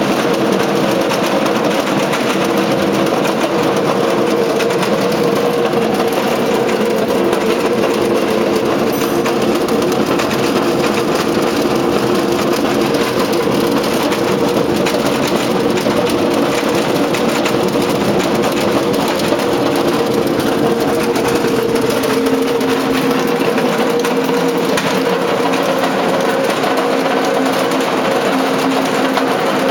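Vibration test table shaking a telescopic mast on its bolted aluminium fixture: a loud, steady machine buzz with several held tones over a hiss. About 22 seconds in the tones shift, and a lower one takes over as the test frequency changes.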